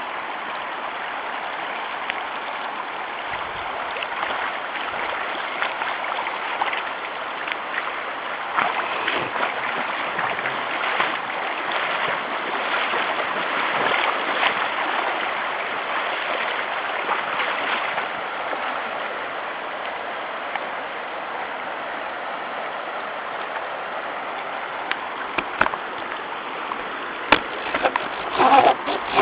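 River current rushing steadily, with the patter of rain. A few sharper splashes come near the end.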